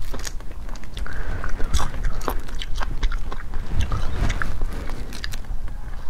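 Shells of cooked mantis shrimp cracking and snapping as they are peeled by hand, in quick irregular clicks, mixed with chewing. A steady low hum runs underneath.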